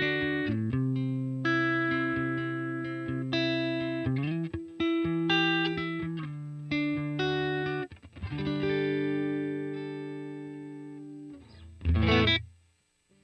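Electric guitar played through a Vox AC30 amp simulation, lightly driven chords struck about once a second and left to ring. A long chord rings out and fades, then a last strummed chord about twelve seconds in is cut off just before the end.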